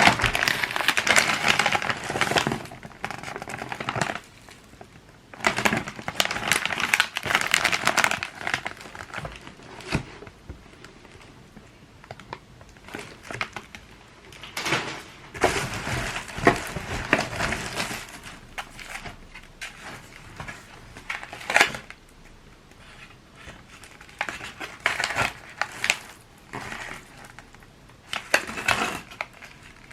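Handling noise: rustling and crinkling in irregular bursts of a few seconds each, with sharp clicks and light clatter between them.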